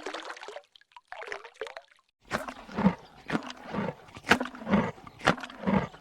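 Water trickling and splashing for about two seconds. Then, a moment later, an animal calling over and over, about two calls a second.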